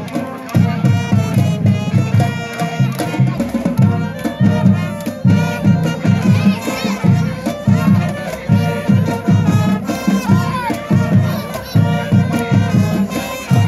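Marching band playing a tune: brass and saxophones over a steady drum beat, with crowd noise underneath.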